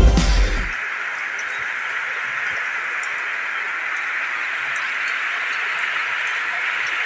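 Heavy rain falling steadily, a dense even hiss with faint scattered drop ticks. The tail of electronic intro music cuts off within the first second.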